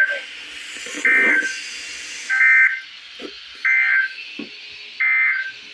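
A microwave oven's electronic beeper sounding four short, identical beeps, evenly spaced about 1.3 seconds apart.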